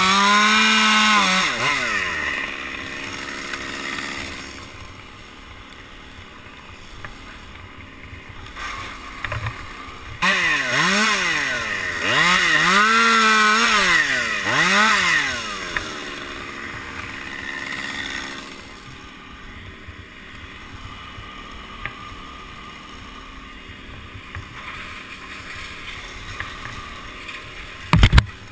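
Top-handle chainsaw revving hard in repeated quick rises and falls at the start and again in the middle, dropping back to a steady idle in between and afterwards. A single sharp knock comes near the end.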